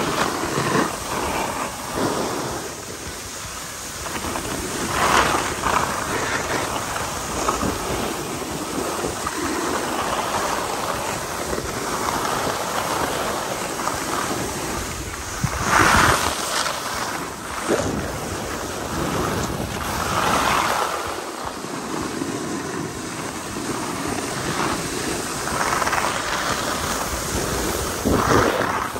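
Skis sliding and scraping on packed snow, swelling into a louder scrape every few seconds with each turn, with wind rushing over the microphone.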